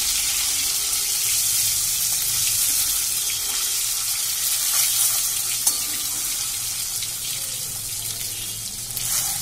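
Whole boiled eggs frying in hot oil in a metal kadai: a steady sizzle, with one sharp click of the metal spatula a little past halfway.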